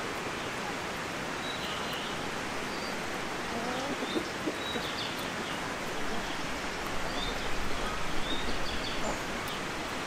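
Small birds chirping now and then over a steady hiss of outdoor background noise, with a few lower gliding calls about four seconds in and more low rumble in the second half.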